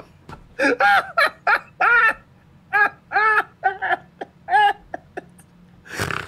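Men laughing hard in bursts of short rising-and-falling 'ha' sounds with pauses between them, ending in a breathy gasp near the end.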